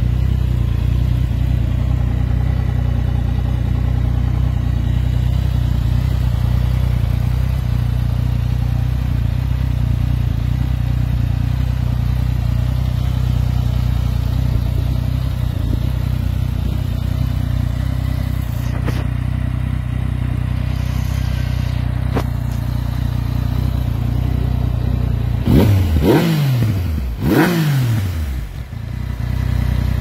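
Yamaha MT-09 second-generation 847 cc crossplane inline-three engine idling steadily through its stock exhaust. Near the end it is revved in two quick throttle blips, each dropping straight back to idle.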